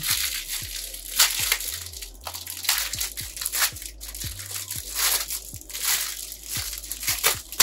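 Clear plastic packaging crinkling and crackling as it is handled and pulled open, in irregular bursts.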